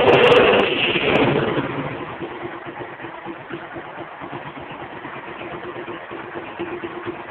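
Small engine of a modified 'mini' vehicle, loud for about the first second, then dropping back to a steady idle with an even, pulsing note.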